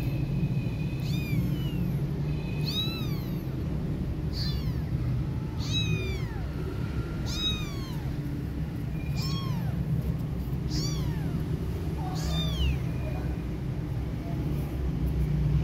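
Tiny kitten mewing repeatedly, about eight short high-pitched calls, each rising then falling and coming every second and a half or so, over a steady low rumble.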